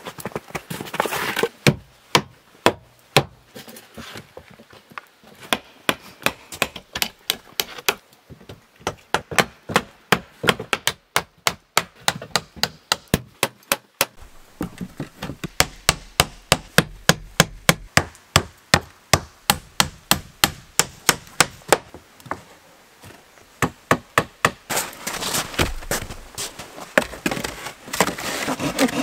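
Hammer driving nails into wooden planks: many sharp knocks, coming in quick, even runs of about three blows a second. Near the end, a stretch of scraping and rustling as boards are shifted.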